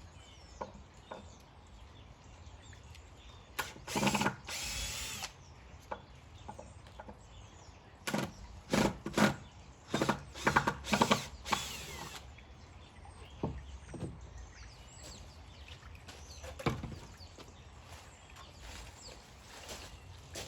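Power drill running in short bursts: one about four seconds in, then several quick ones between about eight and twelve seconds, with a fainter one later.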